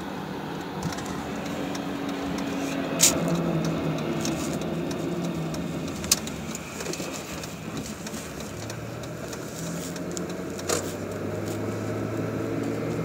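Chevrolet Impala in motion with a steady low drone that shifts in pitch, broken by a few sharp clicks. The owner puts the weird noise somewhere between the wheel and the transmission rather than in the engine, a CV joint or a bearing, without being sure which.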